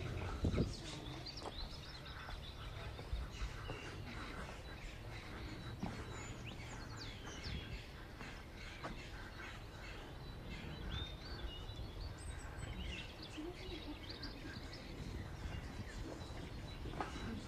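Street ambience with small birds chirping in many short calls over a low steady background rumble, and a brief low thump just after the start.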